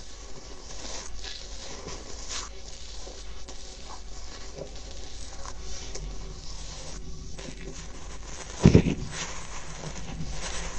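Goose-feather ear-cleaning stick rubbing and scratching against paper taped over a microphone, a close, crackly scraping with small clicks. There is one louder thump about nine seconds in.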